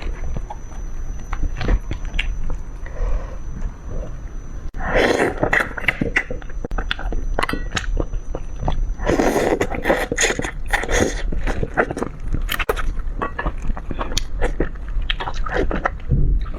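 Close-miked chewing and biting of food, with many short wet mouth clicks and smacks.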